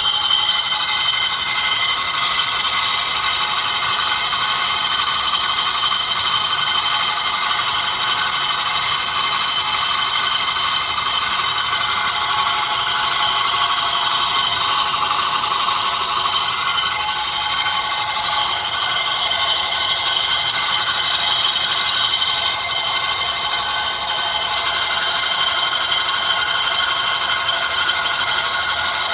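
A steady, high-pitched mechanical whine made of several tones layered over a hiss, holding level throughout with little low rumble.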